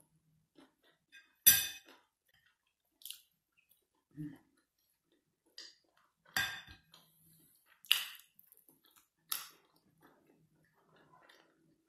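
A metal fork clinking against a plate five times, sharp clinks a second or two apart, with quiet chewing between.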